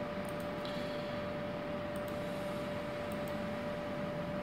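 Steady room hum with a constant mid-pitched tone, and a few faint, sharp clicks of a computer mouse as dialog windows are clicked through.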